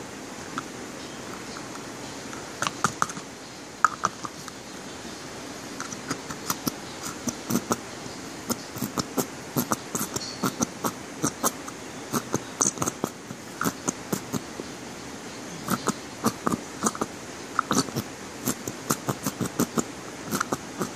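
Thick black shampoo being squeezed into and worked in a small plastic container: irregular sticky clicks and taps, several a second, starting a couple of seconds in. Under them is a steady hiss of drizzling rain.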